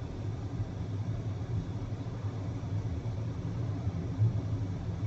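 Steady low rumble of engine and road noise inside the cabin of a Volvo XC90 B5 diesel mild hybrid cruising at about 50 km/h, with a brief bump about four seconds in.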